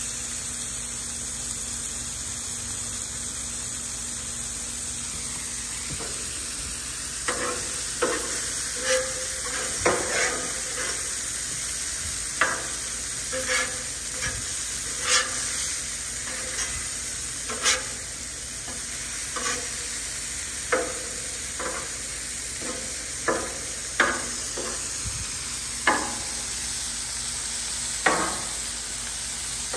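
Ground beef browning in a frying pan: a steady sizzle, joined from about seven seconds in by a utensil knocking and scraping against the pan every second or two as the meat is broken up and stirred.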